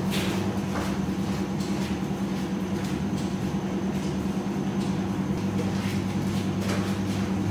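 A steady low hum with two constant tones, like a running appliance or motor, and a few faint knocks now and then.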